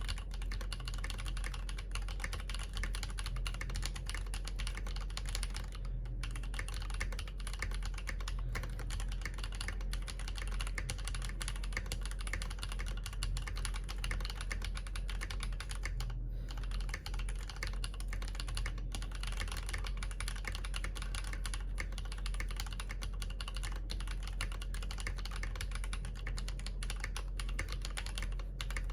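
Mechanical keyboard typing test: an Akko MOD001v2 with Yok Panda tactile switches on a polycarbonate plate, keys typed rapidly and continuously, with a couple of brief pauses.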